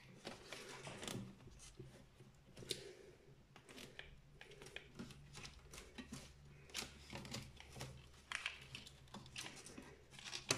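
Plastic snap clips of a laptop's case clicking and creaking as the case halves are pried apart: scattered small clicks and scrapes throughout.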